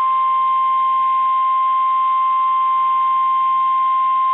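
NOAA Weather Radio warning alarm tone: a single steady 1050 Hz tone held unbroken over radio hiss. It is the alert signal that a new warning, here a tornado warning, is about to be broadcast.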